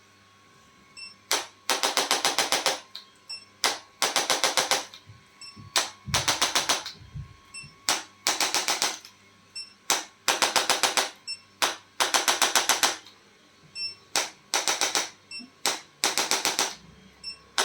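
Handheld chiropractic adjusting instrument firing in rapid bursts of about ten clicks a second. Each burst lasts about a second, is usually led by a single click, and comes again every two seconds or so.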